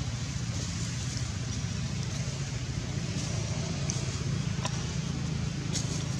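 Steady low rumble of motor traffic, with a few faint ticks.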